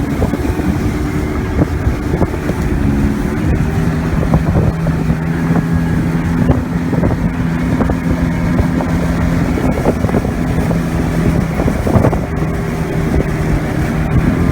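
Outboard motor running steadily at high throttle as the boat planes at speed, over 40 mph, with wind buffeting the microphone.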